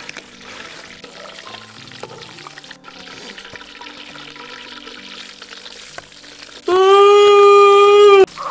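Soft background music, then a man's long, loud, held yell lasting about a second and a half near the end, at one steady pitch and cut off suddenly.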